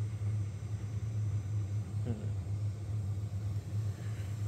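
Steady low hum from the running Elegoo Neptune 4 Pro 3D printer, its nozzle heated for loading filament, with a brief faint sound about two seconds in.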